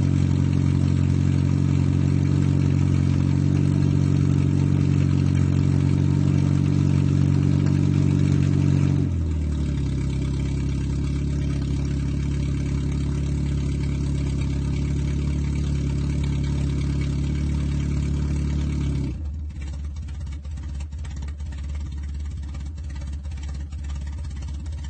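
Audi 80 engine running through a broken exhaust pipe, held at a steady speed. About nine seconds in it drops to a lower steady speed, and about nineteen seconds in it falls to a quieter idle with a faint irregular ticking.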